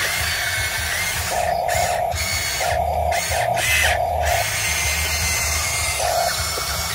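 Huina 580 RC hydraulic excavator's electric pump running with a steady whir, and a higher whine coming in several short spells as the arm and bucket are worked.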